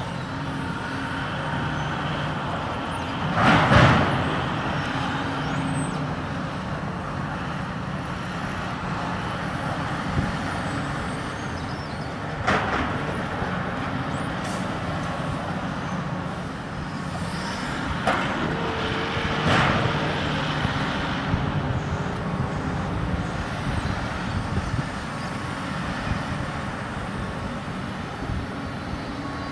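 Demolition excavator's diesel engine running steadily while its hydraulic grab works the wreckage, with sharp crashes of debris: a loud one about four seconds in and smaller ones near the middle and about two-thirds through.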